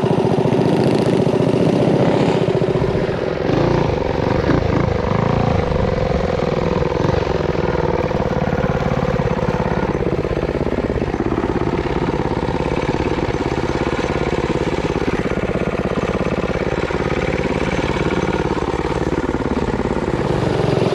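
Mini bike's small single-cylinder engine running under throttle, its pitch rising and falling.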